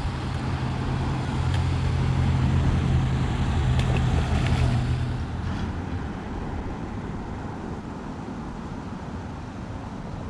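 A vehicle engine running nearby: a low steady hum that swells over the first few seconds and then fades away about halfway through, over steady background noise.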